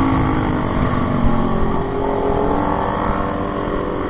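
Motorcycle engine running under way, its pitch climbing as it accelerates and then dropping about two and a half seconds in, as at a gear change, over a low rumble.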